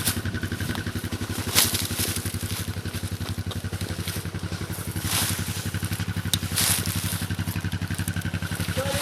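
ATV engine running steadily as the ATV works through water, with a few brief rushing noises over it.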